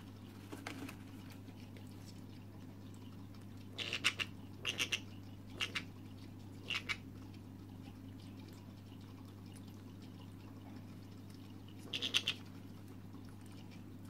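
Senegal parrot chick making short bursts of feeding noises as it takes thick hand-rearing formula from a pipette: about six brief clusters of quick squeaky clicks, with a longer pause before the last one.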